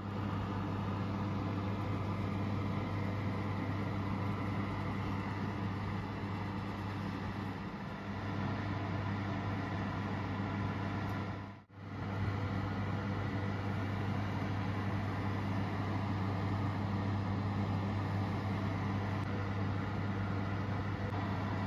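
Electric oven's fan motor running with a steady hum. It drops out briefly about halfway through.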